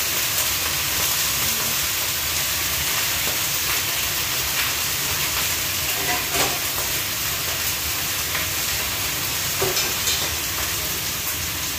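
Chopped Chinese cabbage sizzling steadily in a wok over a gas flame, a constant frying hiss, with a few faint clinks of dishes.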